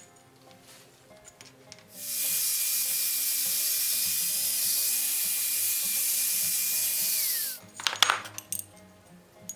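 Angle grinder with an abrasive disc grinding a small forged iron seat iron held in a vise: it starts about two seconds in, runs steadily with a high whine for about five seconds, and winds down in pitch as it is switched off. Iron parts then clink against each other on the workbench.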